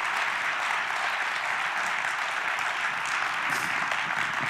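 A church congregation applauding steadily.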